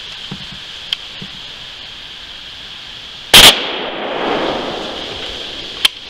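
A single gunshot from a hunting gun, a very loud bang followed by a rolling echo that dies away over about a second and a half. A sharp click comes near the end.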